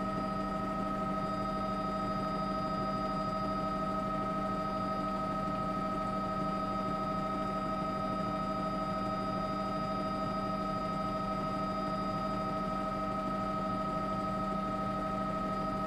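Steady drone of a news helicopter heard from inside the cabin: an even hum with several constant whining tones above it, unchanging throughout.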